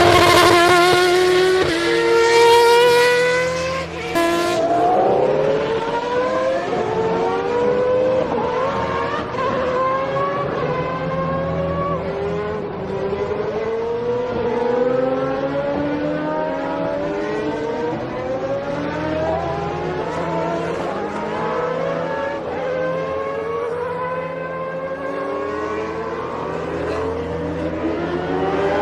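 Formula One racing car engines accelerating hard, several at once, their pitch repeatedly rising and dropping back as they shift up through the gears. The loudest stretch is a high-pitched run in the first few seconds, which cuts off abruptly.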